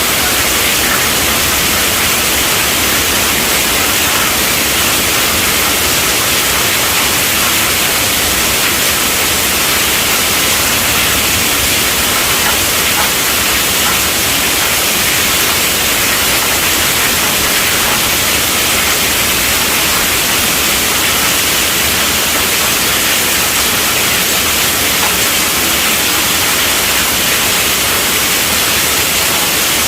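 Steady rainfall: a dense, even hiss that never lets up.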